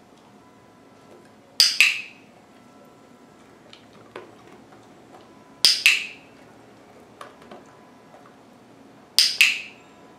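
A dog-training clicker clicked three times, about three and a half seconds apart. Each is a sharp double click of press and release, marking the dog's attention so that a treat can follow.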